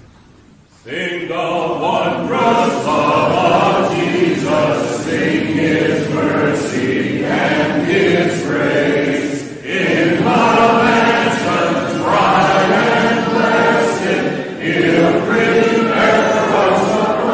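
Mixed choir singing a hymn a cappella, coming in about a second in and carrying on in long phrases with two brief breaks between them.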